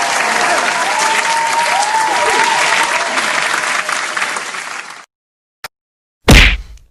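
Stock crowd applause and cheering sound effect, with rising and falling calls over the clapping, cutting off suddenly about five seconds in. A single click follows, then a short, very loud thump near the end.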